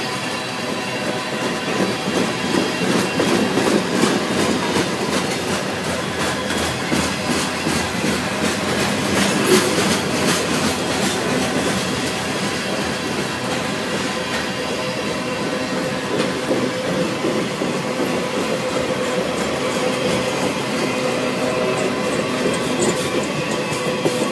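Freight cars of a passing train rolling by: tank cars, covered hoppers and coal gondolas. Their steel wheels clatter in a steady rhythm over the rail joints, with a thin steady squeal from the wheels.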